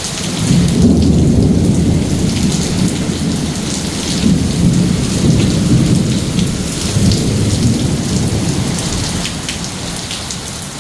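Torrential rain pouring in a windstorm. Under it a deep rumble swells up about half a second in, rises and falls several times, and eases near the end.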